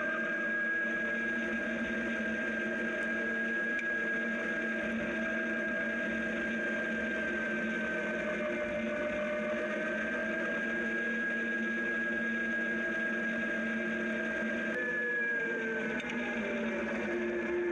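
Zero DSR electric motorcycle's motor and drive whining steadily while riding, its pitch falling about fifteen seconds in as the bike slows, over a low rushing road noise.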